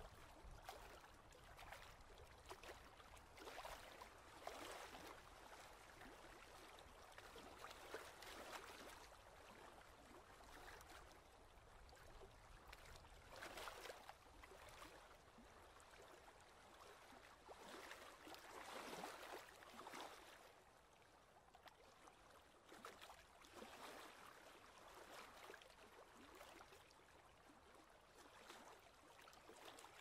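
Faint small waves lapping at a rocky lake shore, in irregular soft washes.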